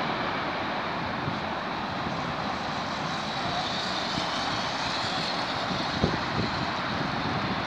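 Boeing 777-300ER's GE90 turbofan jet engines during landing and rollout, a steady broad rush of jet noise, with a single thump about six seconds in.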